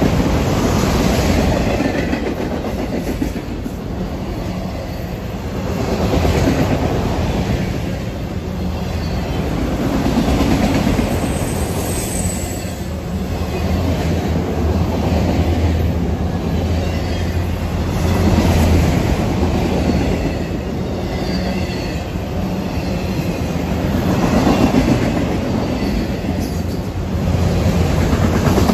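Freight train of autorack cars rolling past at close range: a steady rumble of steel wheels on rail that swells and eases every several seconds as the cars go by. A brief high-pitched wheel squeal comes about twelve seconds in.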